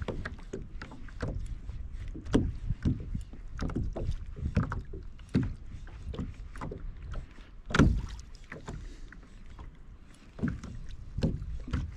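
Water lapping and slapping against the hull of a Hobie Compass fishing kayak in small irregular splashes and knocks, with one louder knock about eight seconds in.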